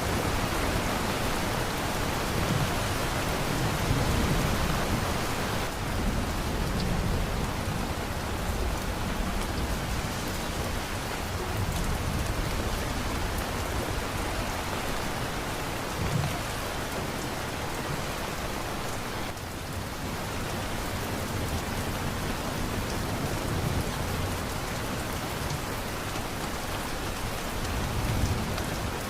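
Steady heavy rain falling on a surface, with low rumbles of distant thunder swelling now and then.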